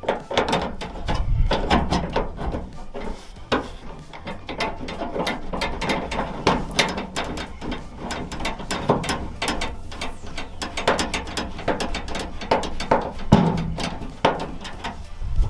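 Ratcheting 8mm driver clicking in quick runs with short pauses as the two 8mm screws holding the tailgate latch handle assembly are driven back in.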